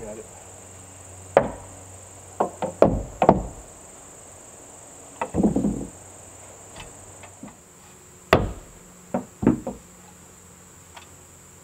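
Hammer blows on wood as batten trim is nailed onto board siding: scattered, irregular strikes, some in quick pairs. A steady high-pitched insect drone runs underneath.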